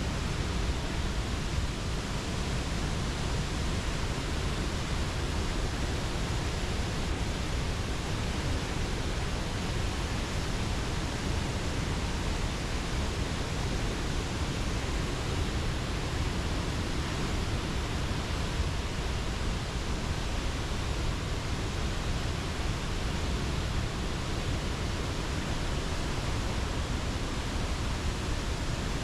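Steady, unbroken rush of heavy falling water from the Athirapally Waterfall on the Chalakudi River, heaviest in the low end.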